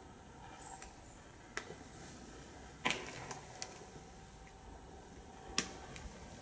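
A handful of short, sharp clicks and knocks at irregular intervals over a low hiss, the loudest about three seconds in and another strong one near the end.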